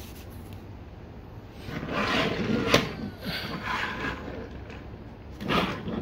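Toy cars being pushed and rolled across a wooden tabletop: a stretch of rolling and scraping about two seconds in, with one sharp knock in the middle of it, and another short scrape near the end.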